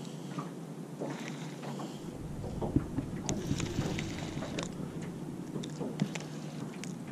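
Baitcasting reel cranked through a lure retrieve, with water lapping at a jon boat and scattered light clicks. A low wind rumble comes in about two seconds in.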